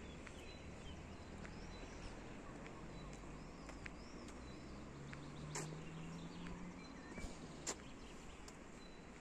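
Faint outdoor morning ambience with small birds chirping in the distance, a few light clicks, and a low steady hum near the middle.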